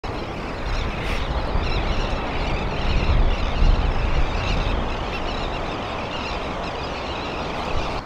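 Ocean surf and wind on the microphone: a steady rushing noise over a low, uneven rumble, loudest about three to four seconds in.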